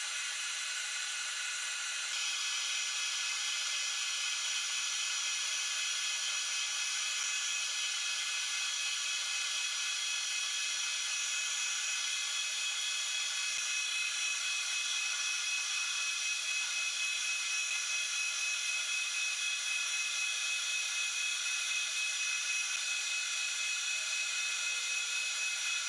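Metal lathe running while a carbide insert turns a steel shaft, a steady whine with several fixed tones.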